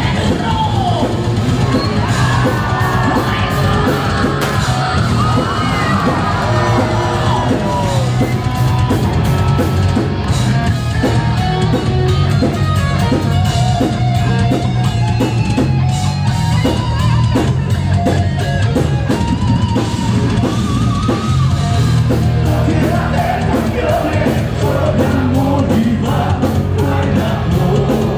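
Heavy metal band playing live and loud: distorted electric guitars, bass and drum kit, with a singer's voice, heard from within the crowd.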